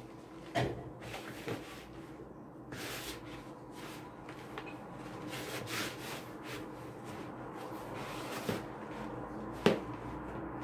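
Hand mixing and kneading stiff flour-and-water dough in a plastic bowl: dry rubbing and scraping of flour and dough against the bowl, with a few knocks of the bowl, the loudest near the end.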